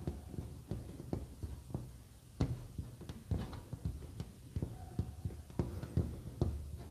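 Irregular soft low thumps and small clicks, several a second.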